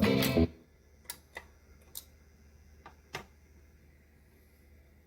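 A 45 rpm record playing guitar music on an antique record player cuts off abruptly about half a second in. Five short, faint clicks follow over a low hum.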